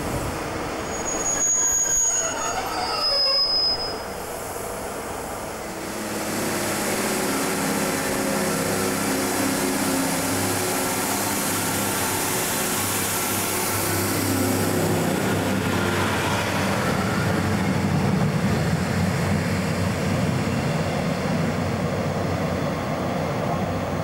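Class 150 Sprinter diesel multiple unit at a station platform: high-pitched squealing from its wheels and brakes in the first few seconds, then its underfloor diesel engines running with a rising rush of wheel and engine noise as the train moves close by.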